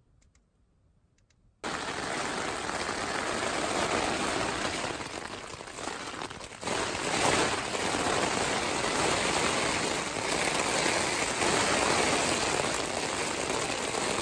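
Heavy rain hitting a tent's fabric, heard from inside the tent as a steady, dense hiss of drops. It starts suddenly about a second and a half in, after near silence.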